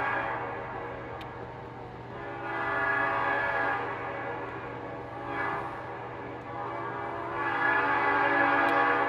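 Locomotive multi-chime air horn sounding a series of blasts that swell and fade: one dying away in the first second or so, another around three seconds in, a short one about five and a half seconds in, and a long one from about seven and a half seconds to the end. A steady low hum runs beneath.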